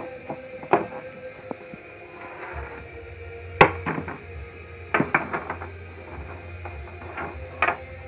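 Handling noise from a flat, clear-jacketed Nordost Blue Heaven RCA interconnect being picked up and moved on a table. It makes a scattered series of sharp knocks and clicks, bunched in the middle and once more near the end, over a faint steady hum.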